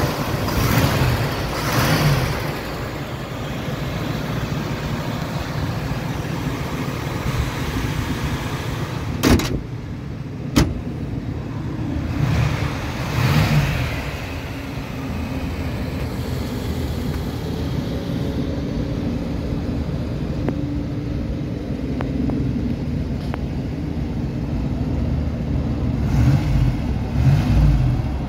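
1987 Chevrolet El Camino's engine running at idle and blipped briefly three times: near the start, about halfway, and near the end. Two sharp clicks come about a third of the way in.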